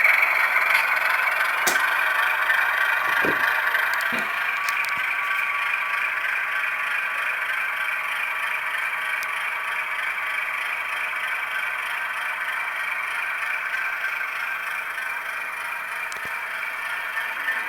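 Model diesel locomotive's sound decoder playing a Baldwin engine sound through its small onboard speaker as the locomotive runs along the track, getting slowly quieter. A few clicks and knocks come in the first few seconds.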